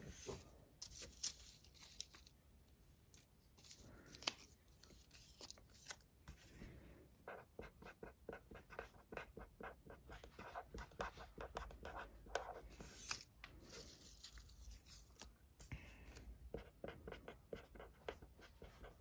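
A pen writing by hand on small paper stickers: faint, quick scratching strokes in short runs as each letter is formed.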